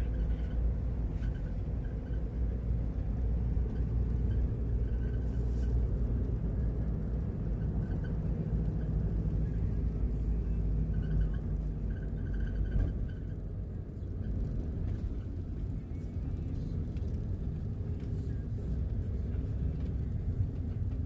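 Steady low rumble that eases somewhat about thirteen seconds in.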